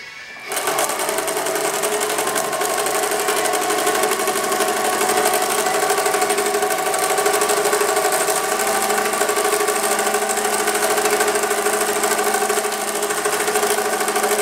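Chandler darning machine, set up as a lockstitch machine, starting about half a second in and running steadily at speed while stitching through heavy acrylic canvas: a fast, even rattle of stitches over a steady motor hum.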